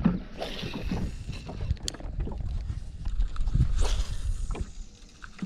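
Wind buffeting the microphone over small knocks and rattles in a small metal jon boat, with two brief whooshes, about half a second in and near four seconds in.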